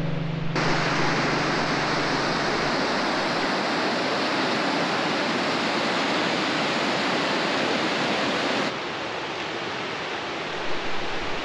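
Waterfall rushing: a steady, dense roar of falling water that drops suddenly to a softer rush about three seconds before the end.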